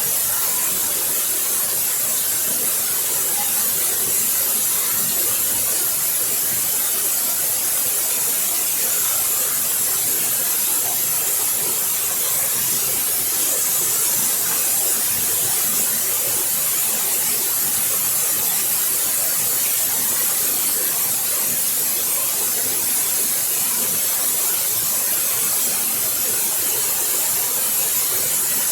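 Waterfall: water falling and splashing in a steady hiss, with no changes.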